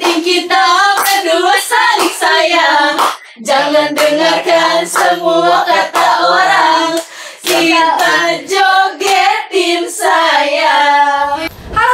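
Young voices singing a song together while clapping along in a steady beat.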